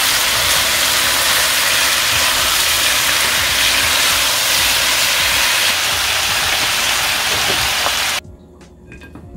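Pork slices and green onions sizzling loudly in a frying pan over high heat, stirred with a wooden spatula. The sizzle cuts off abruptly about eight seconds in, and soft music follows.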